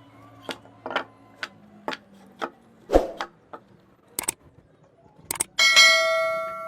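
Sharp taps on wood about twice a second, a heavier one about three seconds in, as a carving chisel is struck. Near the end comes a ringing metallic note that slowly fades.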